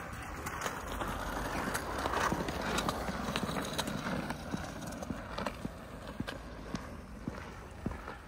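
Small hard wheels rolling over skatepark concrete: a rushing rumble that swells about two seconds in, with irregular sharp clacks of hard wheels and decks knocking on the surface.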